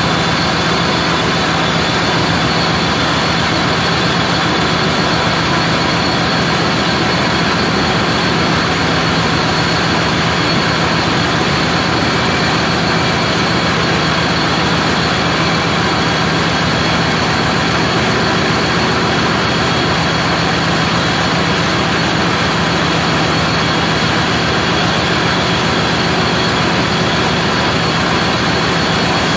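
Metal lathe running steadily while turning a metal shaft: a loud, even machine noise with a low hum and no breaks.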